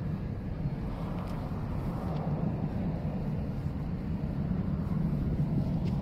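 Steady low rumble of jet airliner engines near the runway, holding at an even level with no clear rise or fall.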